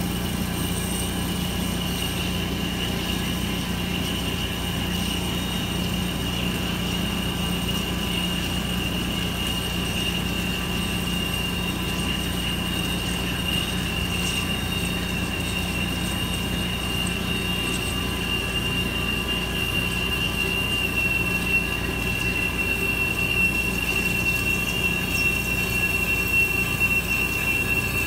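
Vision Wide bridge-type CNC milling machine deep-hole drilling with an 8 mm drill and coolant: a steady high-pitched squeal from the cut that drifts slightly lower in pitch, over a low steady hum. It grows a little louder near the end.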